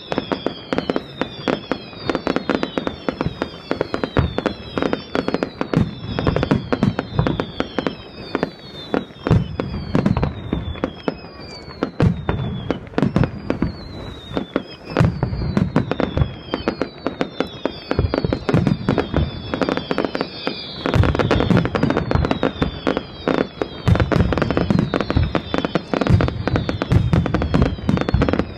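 Fireworks display going off: rapid sharp bangs and crackling with many short falling whistles overlapping one another, and heavier booming bursts in clusters about a third of the way in, at the middle and towards the end.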